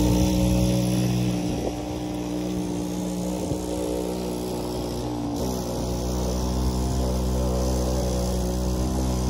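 Mini bike's small whipper snipper engine running at a steady speed while ridden. It fades a little as the bike pulls away and comes back up as it returns.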